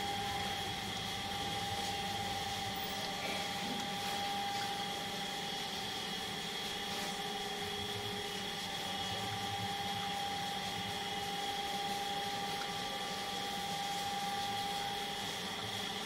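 A steady machine hum with a constant high-pitched whine running through it, with only faint handling sounds.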